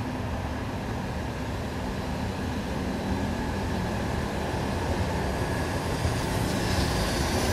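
EF65 electric locomotive moving off slowly, a quiet steady running hum and rumble. A hiss builds up near the end.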